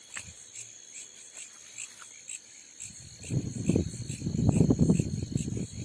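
Crickets chirping steadily, a few pulses a second, over a steady high insect drone. From about three seconds in, a loud, irregular low rumble of microphone noise rises over them.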